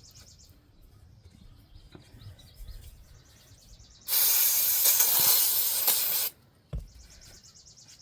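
Aerosol can of brake cleaner spraying onto a greasy tractor wheel hub: one steady, loud hiss of about two seconds, starting about halfway through and cutting off sharply. A single knock follows shortly after.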